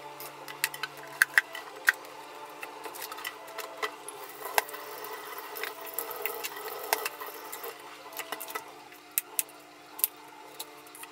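Kitchen knife peeling root vegetables over a stainless-steel sink, with sharp irregular clicks of the blade. Tap water runs for a few seconds around the middle. Near the end the knife cuts a peeled root into pieces on a plastic cutting board, with a few separate knocks.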